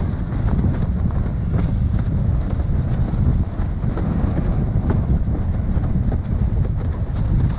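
Strong wind buffeting the microphone of a camera on a windsurfer under way, a dense low rumble with irregular sharp slaps and splashes of water against the board.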